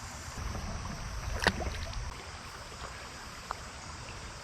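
Low, steady sound of creek water moving around a wader, with one sharp click about one and a half seconds in and a fainter tick later.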